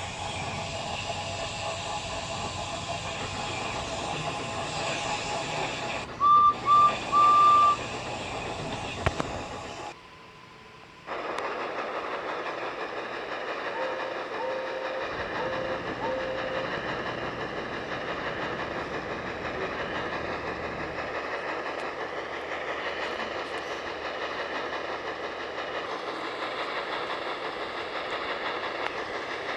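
Train running steadily, with a loud whistle sounding three short blasts about six seconds in. The sound drops away for about a second near ten seconds, then the running resumes with a few fainter short toots a few seconds later.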